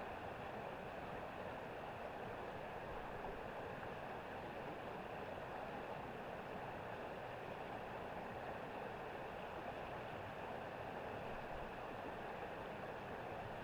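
River water flowing, a steady, even rush with no breaks or changes.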